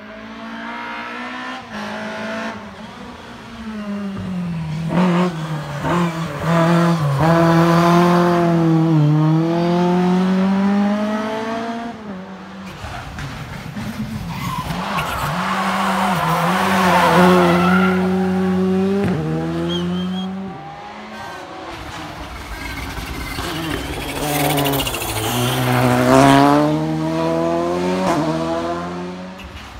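Rally cars running through a tarmac hairpin on a special stage, three passes one after another. In each pass the engine pitch falls as the car slows into the bend, then rises in steps through the gears as it accelerates away.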